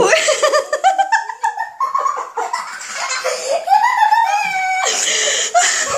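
Two young children laughing and giggling in high-pitched bursts.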